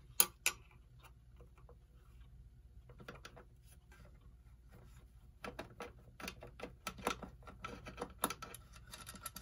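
A screwdriver unscrewing a small slotted metal nut from a clock's back plate: a sharp click at the start, then irregular light clicks and scrapes that grow thicker over the last four seconds.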